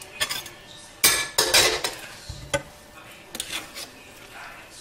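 A kitchen utensil stirring against cookware, making irregular clinks and scrapes; the loudest come a little over a second in.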